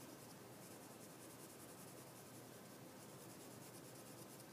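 Faint, steady scratching of a graphite pencil shading on drawing paper.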